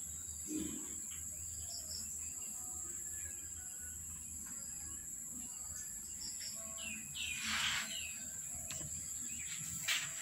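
Small birds chirping faintly in the background, with a short hissing rustle about seven and a half seconds in and a sharp click near the end.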